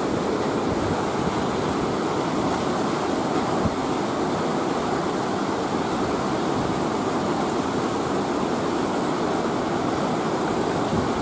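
Steady rushing of flowing river water, an even noise that holds at one level throughout.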